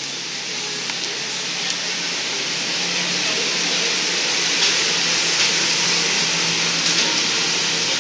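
Steam locomotive and its rail cars pulling in past the platform: a steady hiss of steam over a low hum, growing louder over the first few seconds and then holding.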